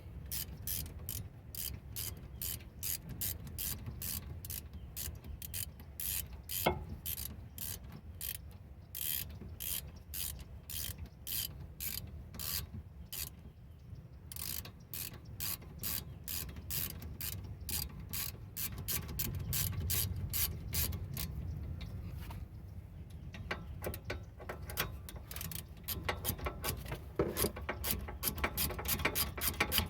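Ratchet wrench clicking steadily, a few clicks a second, as it tightens the rear brake caliper bolts; the clicking quickens near the end.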